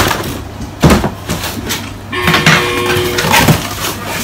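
Cardboard box being opened by hand: a couple of sharp knocks of cardboard, then plastic packing tape peeled off in a long rasping tear with a squeaky tone through the middle of it.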